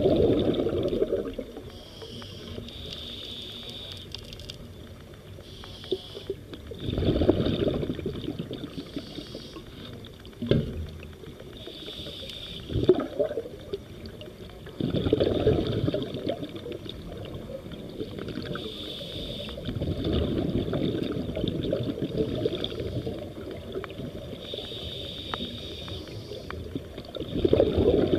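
Scuba breathing through a regulator underwater: a short hiss with each inhalation alternates with rumbling bursts of exhaled bubbles, about one breath every five to six seconds. A couple of sharp knocks come midway.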